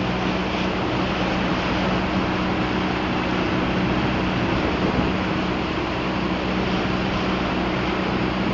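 Boat's outboard motor running steadily under way, a constant low hum under the rushing hiss of water and wind.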